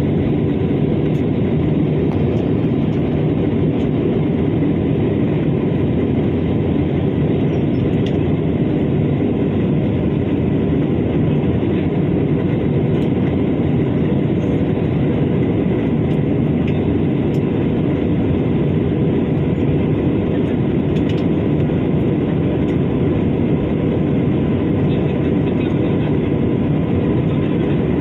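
Steady, unbroken cabin drone of a jet airliner in flight, heard from a seat over the wing, with a faint steady whine above the low rumble.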